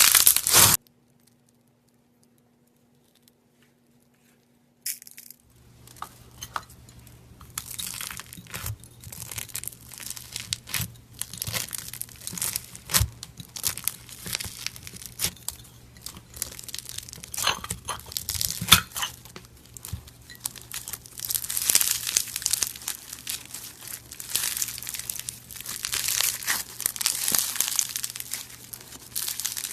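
Brittle, crumbly material being crushed and pulled apart by hand, close up: a loud crunch at the very start, then after a few seconds of near silence a long run of crackling, crunching and tearing with sharp snaps, denser near the end.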